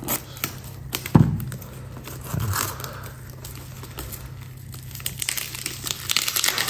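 Clear plastic wrapping being cut and pulled off a small package by hand, crinkling and crackling in short bursts that grow denser near the end, with a single knock about a second in.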